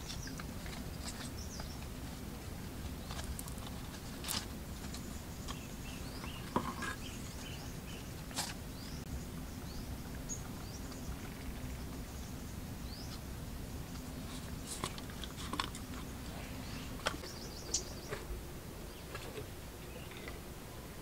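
Scattered small clicks and taps of hands working fishing line, hooks and plastic bottles, about a dozen in all, over a steady low outdoor background with faint bird chirps.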